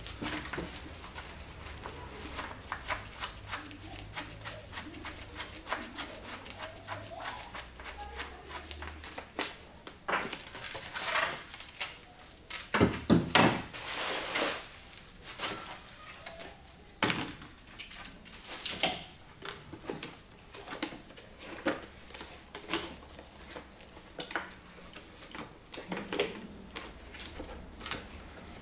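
Gloved hands prying and peeling mould pieces off a cast sculpture head: irregular clicks, crackling and scraping, with a few louder knocks and rustling about halfway through.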